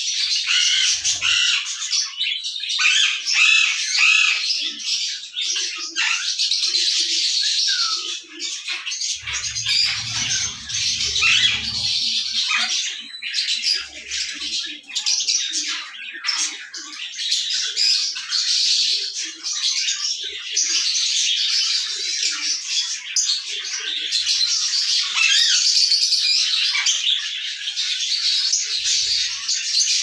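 Birds calling without a break: harsh squawks over a dense, high chatter, with helmeted guineafowl among the callers.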